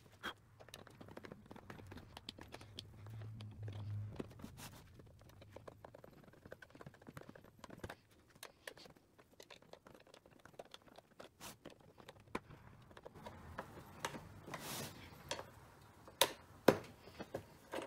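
Sealed sheet-metal ammunition spam can being cut open around its lid with its opener tool: a run of small scraping clicks and crunches, with a few sharper, louder clicks near the end.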